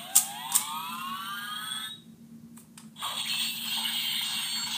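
Power Rangers Ninja Steel morpher toy playing electronic sound effects through its small speaker: rising sweeping tones over the first two seconds with a couple of plastic clicks, a short gap, then a steady electronic tone.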